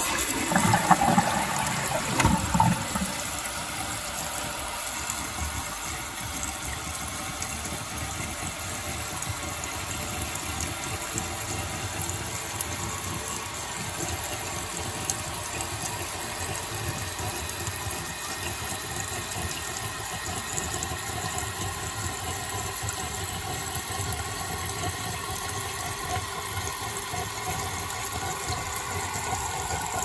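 Toilet tank refilling through a new fill valve: water churns loudly for the first couple of seconds as the flush ends, then pours in with a steady, even hiss as the tank fills. The unclogged valve fills at full flow, filling the tank in about 33 seconds.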